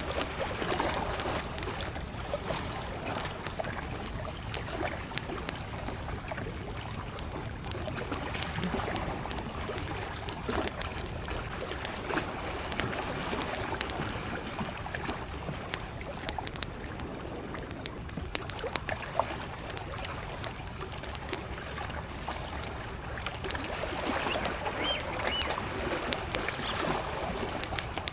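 Wood campfire crackling, with many sharp pops and snaps scattered through it, over the steady wash of small lake waves lapping at the shore.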